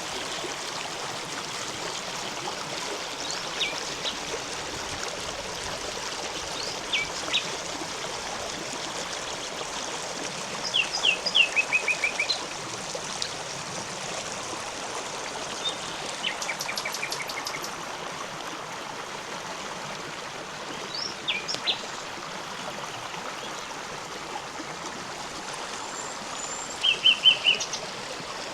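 A river running steadily over rocks, with small birds calling now and then: short sharp notes, and brief rapid trills about a third of the way in and again near the end.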